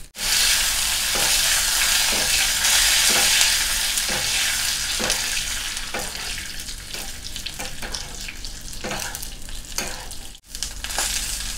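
Curry leaves sizzling loudly as they hit hot oil in a small tempering pan with mustard seeds and dried red chillies. This is the tempering (kadugu varuthathu) for a kichadi. A spoon stirs through it about once a second. The sizzle is loudest over the first few seconds and then eases, with a brief cut-out near the end.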